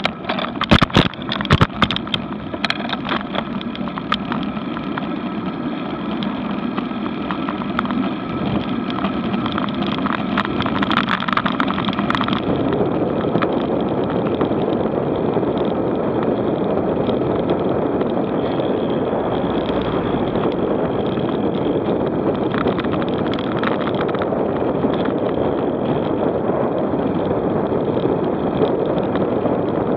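Wind rushing over an action camera's microphone and tyre noise from a bicycle rolling along a paved road, growing louder as the bike speeds up after about twelve seconds. Sharp rattling knocks come in the first couple of seconds.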